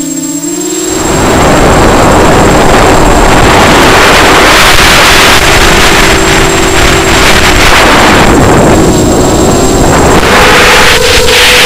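Wind rushing loudly over the microphone as a ZMR250 racing quadcopter flies fast. Underneath is the steady hum of its Emax 2204 brushless motors and unbalanced 5045 bullnose propellers, which steps up in pitch near the end.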